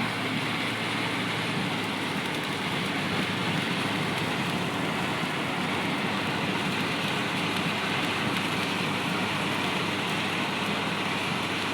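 A car driving through a flooded, rain-soaked area: a steady hiss of rain and water off the wet road, with a low hum underneath.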